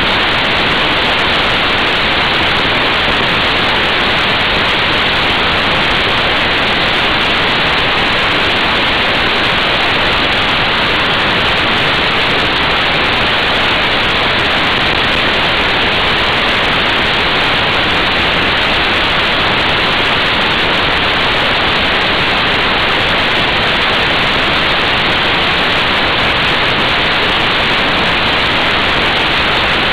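Wind rushing over an action camera's microphone on a motorcycle at motorway speed: a loud, steady, even noise with no engine note standing out.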